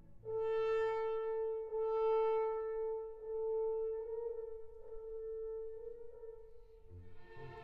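Orchestral background music: a wind instrument sounds the same long note three times, then it fades, and strings come in near the end.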